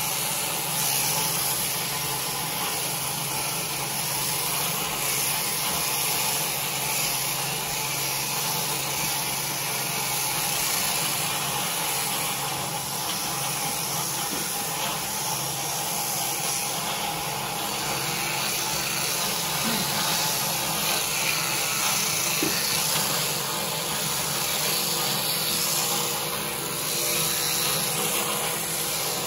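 Electric sheep-shearing handpiece running steadily as its comb and cutter clip the fleece off a sheep.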